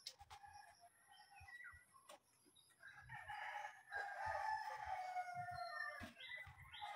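A rooster crowing once, one long call from about three to six seconds in.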